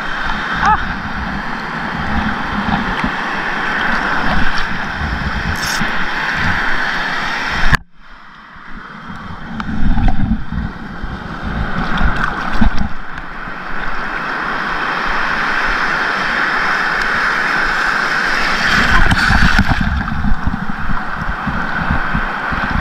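Sea water sloshing and gurgling around a wading angler's body and the camera close above the surface. The sound drops out sharply about eight seconds in, then swells back.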